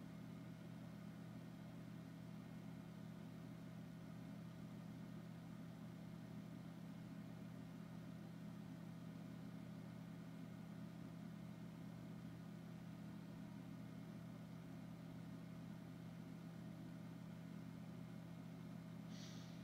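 Faint, steady low electrical hum of several even tones, the background noise of the recording, with no drawing sounds standing out.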